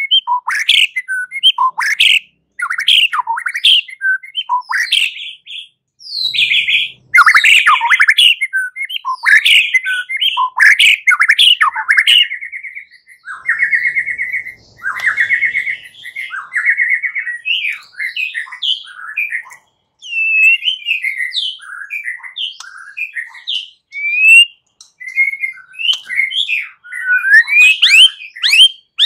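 White-rumped shama (murai batu) singing its aggressive 'fighting' song: a fast, loud run of varied whistles, chirps and chatters, broken by short pauses, with buzzy rattling trills about halfway through.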